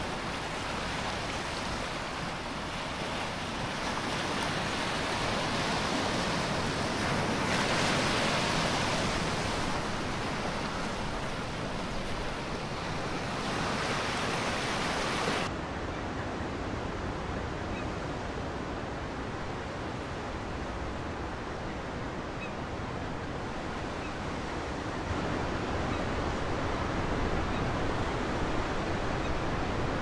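Sea surf washing and breaking over rocks, a steady rushing noise that swells louder for a few seconds before the middle. About halfway through it changes abruptly to a softer, duller surf sound.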